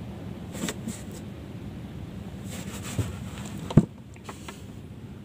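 A few short knocks and clatters on a small wooden fishing boat, the loudest a sharp knock a little before four seconds in, over steady wind and water noise.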